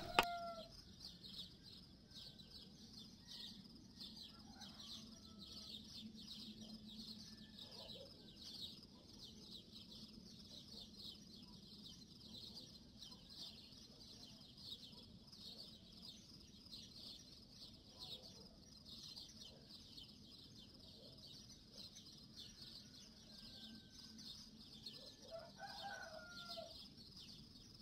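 Quiet rural farmyard ambience: chickens clucking now and then, the clearest calls near the end, over a steady high-pitched chirring in the background.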